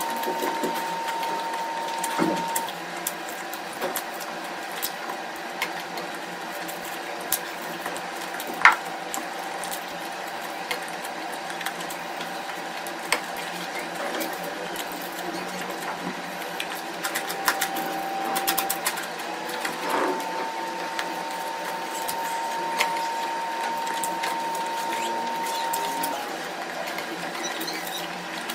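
Close-miked eating sounds: wet chewing and a rapid run of small mouth clicks and smacks, with one sharper click about eight seconds in. A thin steady high hum stops early on and returns for several seconds later.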